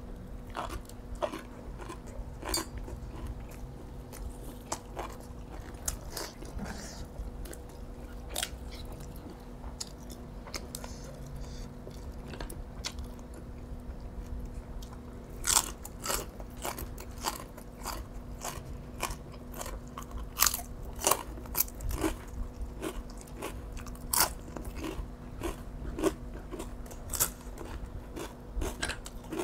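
Close-up eating sounds: a person chewing and crunching a meal of boiled field snails, spicy yard-long-bean salad and raw greens. Sharp crunchy clicks come every second or so and grow louder and more frequent in the second half, over a faint steady hum.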